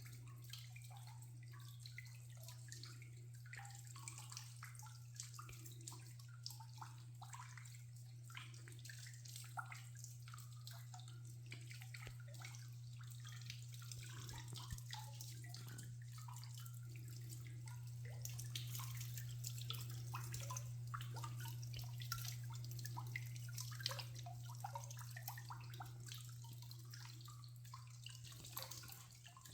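Soft trickling and dripping water, many small splashes in quick succession, a little fuller in the second half, over a steady low hum.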